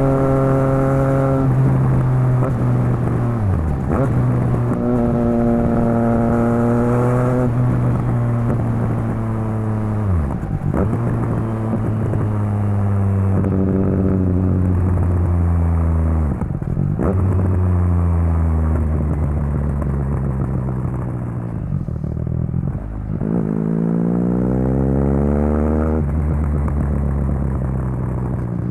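Triumph Street Triple RS 765 cc three-cylinder engine through a Yoshimura Alpha T exhaust with the dB killer fitted, riding on and off the throttle. The revs dip sharply and pick up again about four times, with a long, steep climb in revs near the end.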